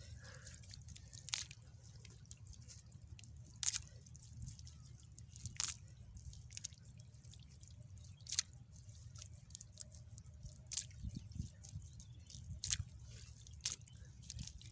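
Wet cast net being gathered and worked by hand in shallow mud and water: scattered sharp drips and squelchy clicks, about a dozen at uneven intervals, over a low steady rumble.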